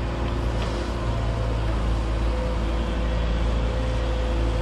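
Amphibious dredger's engine running with a steady low drone and a faint steady hum on top.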